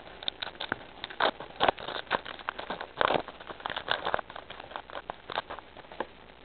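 Foil wrapper of a Pokémon trading card booster pack crinkling and tearing as it is opened by hand: a run of irregular crackles and rustles.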